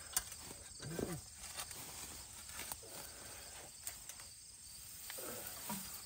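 Crickets chirping steadily, with a few faint clicks and scrapes of a spade digging into grassy ground.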